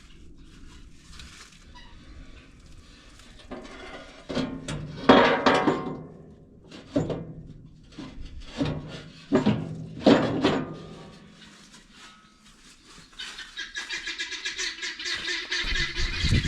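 Guinea fowl calling: a string of loud, harsh calls, five or six in quick succession, followed near the end by a continuous high chattering.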